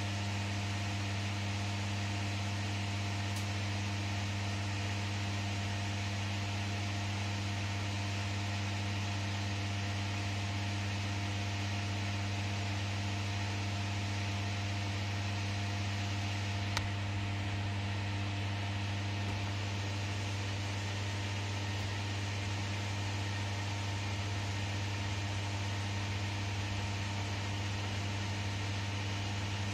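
Steady electrical hum with an even fan-like hiss inside a closed Ferris wheel gondola, from the cabin's air-conditioning and heating unit running.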